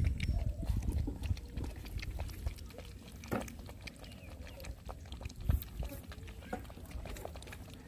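Two puppies lapping milk from a plastic plate: a steady run of small wet clicks and slurps. Around the middle, milk is poured from a bottle onto the plate. There is a low rumble in the first second or so.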